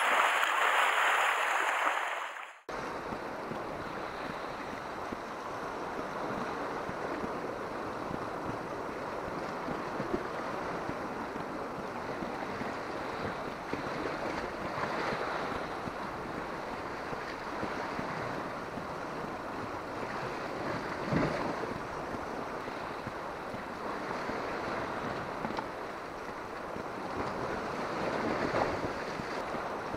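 Sea surf washing against a rocky shore, with some wind on the microphone. It is louder for the first couple of seconds, then cuts abruptly to a steadier, quieter wash of waves that swells now and then.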